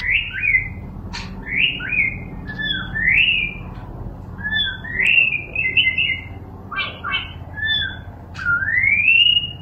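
Caged songbird singing a varied string of clear whistled notes, many sliding up or down, with a few short sharp clicks among them. Near the end comes one long rising whistle.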